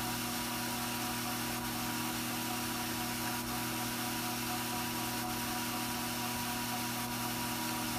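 Steady machine hum: several fixed tones over an even hiss, unchanging throughout, like a small electric motor or fan running.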